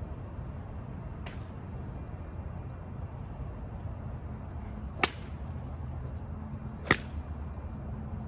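Golf clubs striking balls at a driving range: a fainter crack about a second in, then two loud, sharp strikes about two seconds apart near the end, over a steady low rumble.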